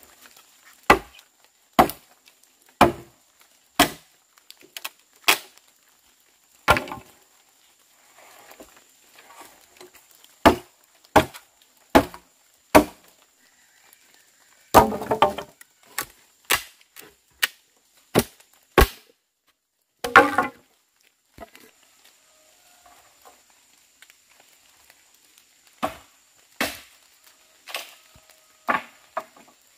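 Firewood being chopped by hand: sharp blows landing about once a second in runs with short pauses, and two longer, rougher crashes about halfway through.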